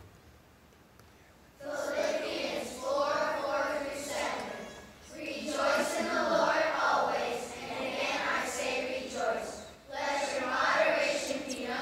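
A children's choir singing together. It begins after a quiet second and a half and goes in phrases of a few seconds, with short breaks between them.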